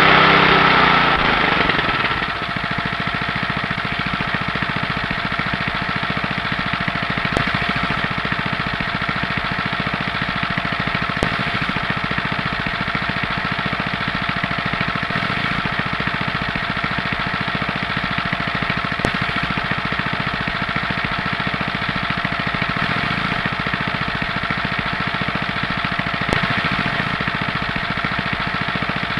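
Lawn mower engine running steadily with an even, rapid pulse. It is louder for the first couple of seconds, then settles to a constant level.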